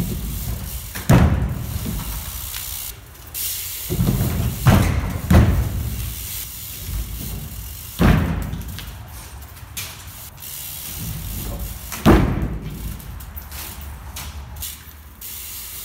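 BMX bike tyres rolling over concrete and a wooden plank bank ramp, with about half a dozen sharp bangs and thuds as the wheels land and hit the boards, echoing in a large empty hall.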